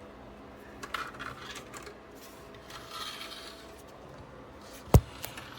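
Hard clicks and rubbing from a PC case being handled, with one sharp knock about five seconds in.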